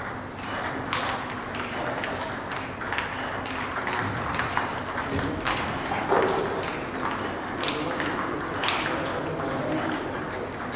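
Table tennis ball clicking off bats and table during a doubles rally, a series of sharp pings at irregular intervals over a steady background hum.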